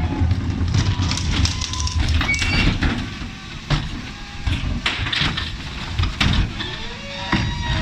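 Refuse truck's engine running with its hydraulic bin lifter working, and plastic wheelie bins knocking and banging repeatedly as they are lifted and tipped.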